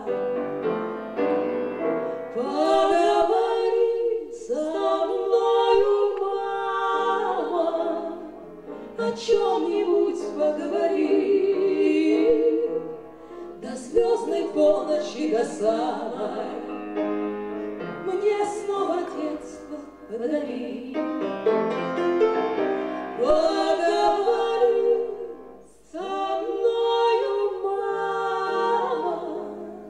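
Live female singing of a Russian song with grand piano accompaniment, sung phrase after phrase with short breaths between.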